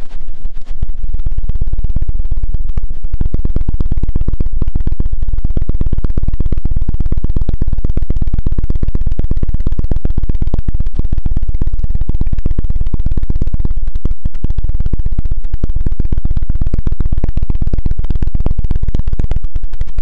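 Fast, continuous scratching and knocking right on the microphone as an ASMR ear-massage trigger, many strokes a second, loud and close with a heavy low thud. It starts suddenly.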